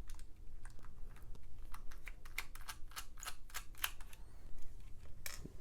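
Small hard clicks and ticks of a precision screwdriver working the mounting screws out of a laptop hard drive's metal bracket, coming quickest around the middle.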